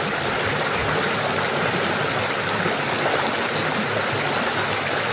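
Stream water rushing over a low rock ledge and churning into white water below, a steady, even rush.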